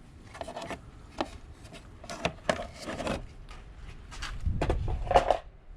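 A scattered run of small clicks and knocks from hands handling hard parts, with a louder low rumble near the end.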